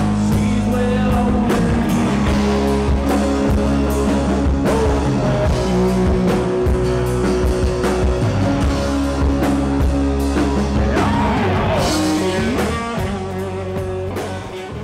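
A country-rock band playing, with acoustic guitar, electric guitar, bass guitar and drum kit. The music fades down near the end.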